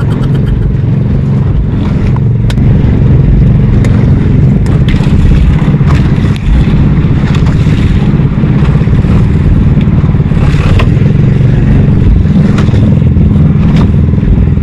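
A small fishing boat's engine running steadily and loudly, close to the microphone, with a few light knocks and clatters over it.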